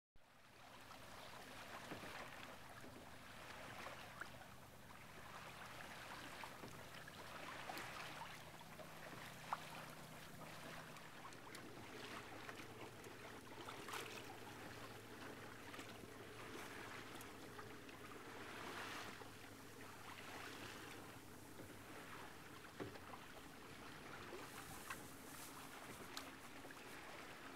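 Faint wash of water along a sailboat's hull as it moves under way, a soft hiss that swells and fades every few seconds. One sharp click about nine and a half seconds in.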